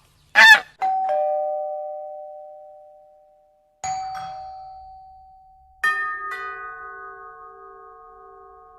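A single loud goose honk, then a two-note ding-dong doorbell chime rung twice, each time a higher note followed by a lower one fading out slowly. About six seconds in, a fuller bell-like chime is struck twice and rings on with a slow wavering fade.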